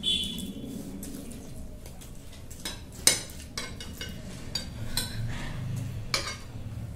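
Metal fork and spoon clinking and scraping against glass plates during eating, with several separate sharp clicks; one rings briefly at the start and the loudest comes about three seconds in.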